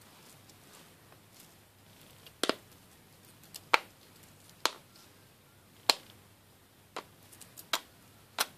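Small steel screwdriver bits and tools clicking one at a time onto a magnetic wristband: about seven sharp clicks roughly a second apart, the first about two and a half seconds in.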